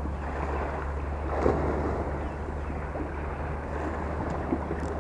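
Steady wind rumbling on the microphone and small waves lapping, with a few faint clicks from handling of the rod and reel.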